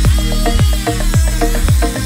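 Electronic dance background music with a steady kick-drum beat, about two beats a second.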